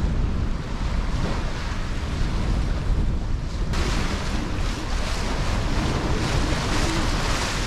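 Wind buffeting the microphone over the rush of water along the hull of a sailboat under sail, with the hiss growing louder about three and a half seconds in.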